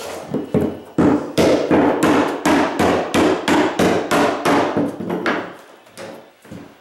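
Hammer driving the nails of wooden carpet tack strip into the floor: a quick run of sharp strikes, about three a second, thinning out about five seconds in.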